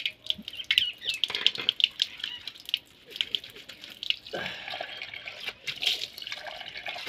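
Water from an outdoor tap running onto a concrete floor, with splashing as a man scoops water to rinse soap off his face. The splashing is irregular for the first three seconds, then denser and steadier from about four seconds in.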